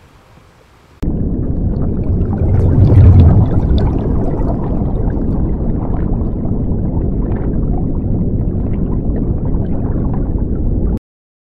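Underwater sound effect: a low, dense wash of water with bubbling and scattered small crackles, starting suddenly about a second in, loudest around three seconds in, and cutting off abruptly near the end.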